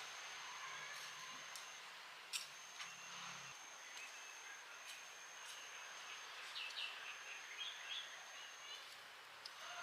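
Quiet outdoor ambience: a steady high-pitched tone that drops out and resumes several times, a sharp click a couple of seconds in, and a short run of bird chirps about two-thirds of the way through.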